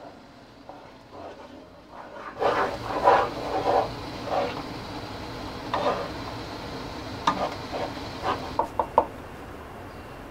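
Wooden spoon stirring and scraping a thick peanut sauce in a frying pan, in irregular strokes after a quieter start, with a few sharp knocks of a spoon on the pan near the end.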